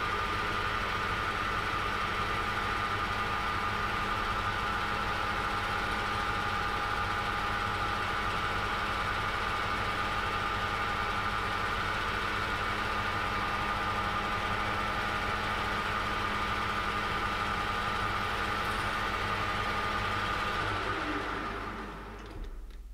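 Small metal-turning lathe running at steady speed, a constant motor hum with a steady whine. Near the end it is switched off and runs down to a stop.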